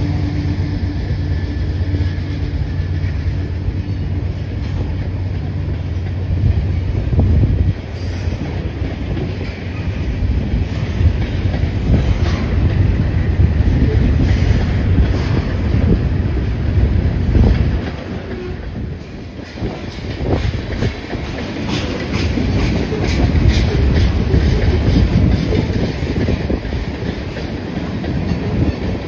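Freight cars (covered hoppers, tank cars and a gondola) rolling past close by: a continuous steel-wheel rumble with repeated clacking over the rail joints. For the first several seconds the hum of the diesel locomotive that has just passed is still heard under it.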